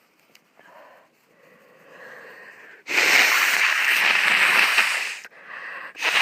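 A person blowing their nose hard, a long honking blow of about two seconds starting about three seconds in, after some faint breathing. A second blow begins just before the end.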